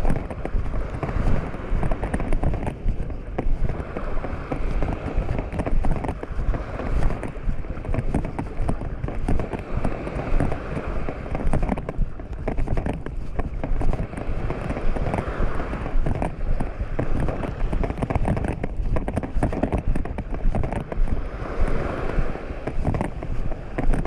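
Wind rumbling and buffeting on the microphone, over the wash of small waves breaking on a sandy shore, which swells up every several seconds.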